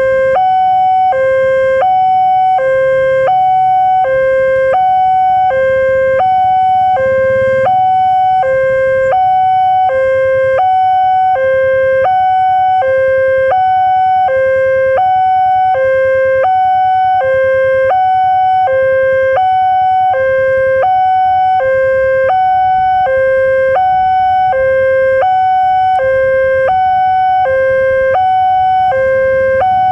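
Level-crossing warning signal from a horn loudspeaker on the crossbuck pole: a loud electronic two-tone alarm, a high and a low tone alternating evenly and without pause, sounding while the crossing is closed for an approaching train.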